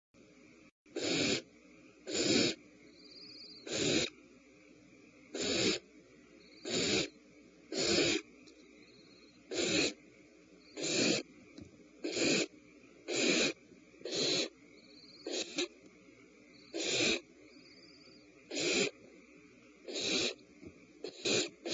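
A nestling bird's harsh hissing calls, repeated about every second to second and a half, each lasting about a third of a second.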